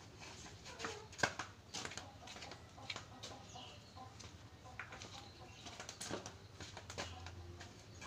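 Scattered light knocks and clicks, the sharpest about a second in, with a few short bird calls over a low steady hum.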